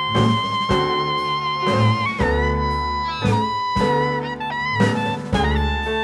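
Background music: an upbeat jazzy tune with guitar and a steady beat.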